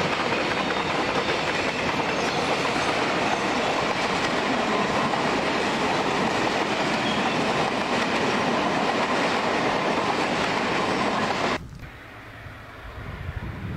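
Freight cars of a passing train rolling by close up: a steady loud rumble and rattle of wheels on the rails. Near the end it cuts off abruptly and gives way to a quieter low rumble of diesel locomotives that builds as they approach.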